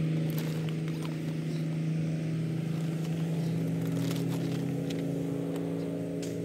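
An engine running steadily at one pitch, its tone shifting slightly about three and a half seconds in, with faint crinkles and ticks of the greenhouse's plastic cover over it.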